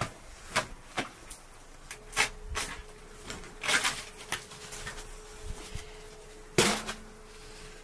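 Thin lavash dough being tossed and slapped from hand to hand, soft slaps about two a second. Then a few thumps as the sheet is laid and stretched over a cloth-covered baking cushion, the loudest near the end.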